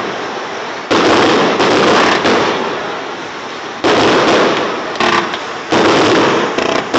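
Aerial firework shells bursting in a rapid series of about half a dozen loud bangs, each trailing off into a long, noisy, crackling tail before the next one hits.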